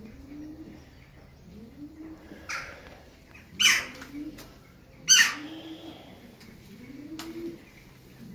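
Pigeons cooing, a low rising-and-falling coo repeated about every second and a half. Four short, loud bursts of rustling noise break in, about two and a half, three and a half, five and eight and a half seconds in.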